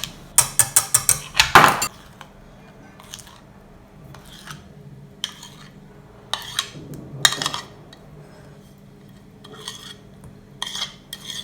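A utensil clinking and knocking against a metal saucepan as hot lemon custard is stirred with sweetened condensed milk: a quick run of clinks in the first two seconds, then scattered single knocks.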